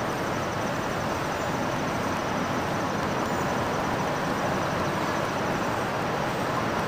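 Steady hum of distant road traffic, even and unbroken, with no sound from the deer.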